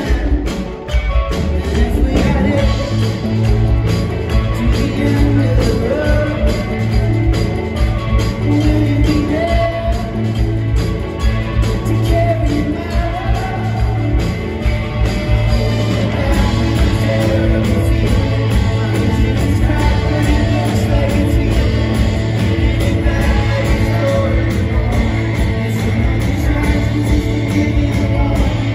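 Live rock band playing with singing: electric guitars, bass, drums and keyboards with backing vocals. The band thins out briefly about a second in, then the full band with bass and drums comes back in and plays on steadily.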